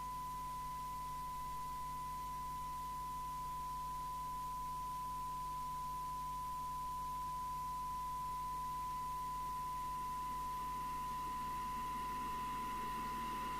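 Steady high-pitched test tone from the Amstrad CB901 FM CB receiver, demodulating the test set's signal during detector alignment. Near the end a rougher, buzzy distortion joins the tone.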